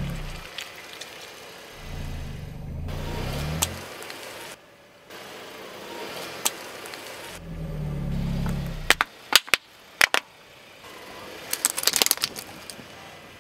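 A car creeping forward on asphalt, its low engine and tyre hum coming and going in three short stretches. Sharp cracks and snaps of small plastic toys being crushed under the tyre come near the end.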